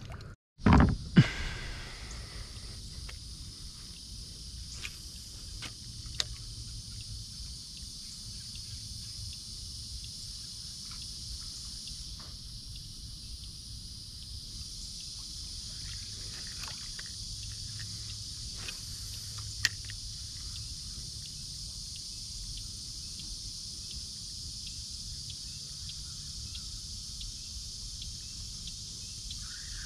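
A steady, high-pitched insect chorus over a low rumble of wind and water. Two sharp knocks come about a second in, and a few faint clicks follow later.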